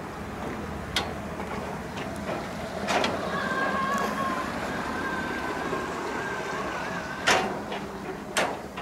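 Footsteps on a metal grating footbridge: sharp knocks about once a second, then a pause, then two louder knocks near the end. A faint thin held tone runs through the middle.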